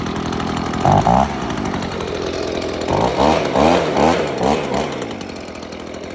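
Gas string trimmer engine running after a restart on the first pull. It is revved once about a second in, then blipped about five times in quick succession, and settles back to idle near the end.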